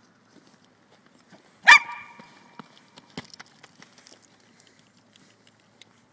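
Jack Russell terrier giving a single sharp bark about two seconds in, followed by a few light taps.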